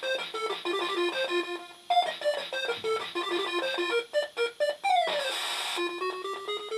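Electronic game music from a Funky Doctor pachinko machine: a quick, bleepy keyboard-like melody, with a falling swoop and a short hissing burst about five seconds in, then a run of notes climbing steadily in pitch.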